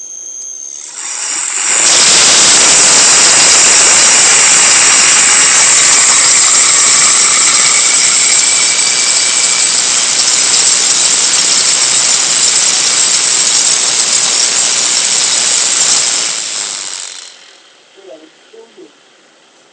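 3D-printed brushless DC motor with neodymium magnets spinning up and running with a loud, noisy whir, then dying away about sixteen seconds in. A few steady high-pitched tones sound for the first second, before it starts.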